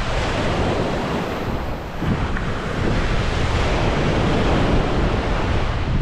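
Sea waves breaking and washing up the shore in two surges, the second about two seconds in, over a steady low rumble of wind buffeting the microphone.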